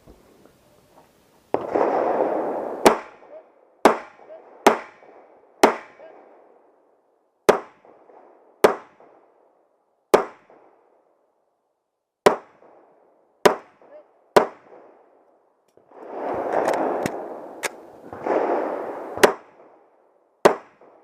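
Handgun shots fired one at a time, roughly a second apart, about fourteen in all, during a timed match stage. A broad rushing noise swells twice, once near the start and once toward the end.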